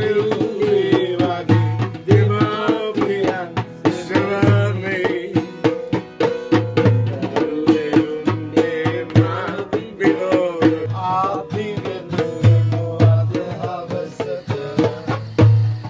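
Music: singing over fast hand-drum strokes, with deep bass drum notes recurring throughout.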